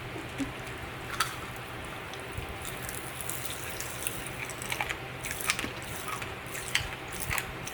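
Close mouth sounds of someone eating strawberry popping candy: scattered small clicks and crackles, bunched more thickly in the middle, over a steady low hum.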